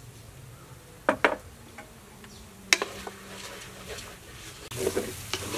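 A few sharp clinks of a container and spoon against the pot as sugar and salt go in, then a wooden spatula scraping and stirring sticky rice in a metal pot, over a faint drone of insects.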